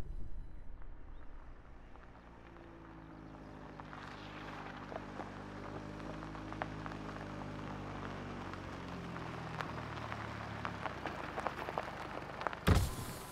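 A car pulling up and slowing to a stop: its engine note falls steadily, under crackling tyre noise. A short, loud burst of noise comes near the end.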